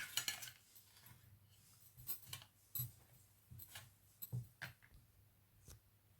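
Small objects handled on a tabletop: faint, scattered light clicks and taps, about a dozen over several seconds.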